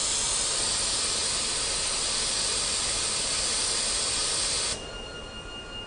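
Steady hiss of escaping compressed air from the machine, cutting off suddenly near the end. A quieter hum with a faint steady whine remains.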